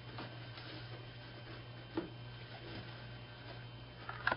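Faint clicks and taps of hands working on a banjo pot, taking off backing tape and the brass stretcher band, over a steady low hum. One sharper click comes about two seconds in, and a couple more near the end.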